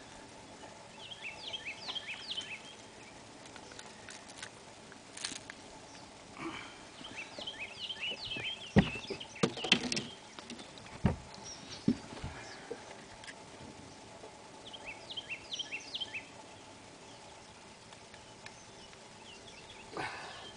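A songbird singing in three bursts of quick, high, down-slurred notes. Several sharp knocks come about nine to twelve seconds in and are the loudest sounds.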